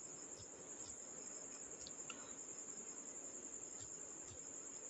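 Faint steady high-pitched insect trill over low room hiss, with a few faint clicks.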